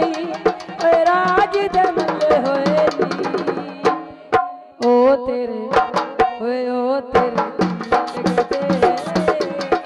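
Punjabi folk dhol geet music: quick dhol drum strokes under a wavering melody line. The music thins briefly about four seconds in, then comes back in full.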